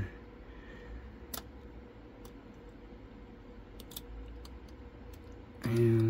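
Faint, scattered metallic clicks of a lock pick working the pin stack of an ABS Avocet cylinder under tension, with a small cluster of clicks about four seconds in.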